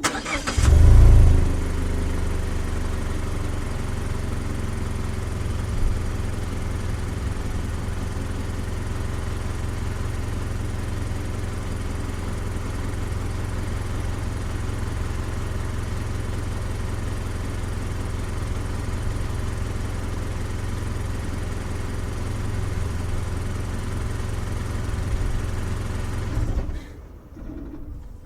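Mazda CX-5 small SUV's engine, heard from outside at the side, starting with a brief loud rev flare, then idling steadily. Near the end it is switched off and stops abruptly.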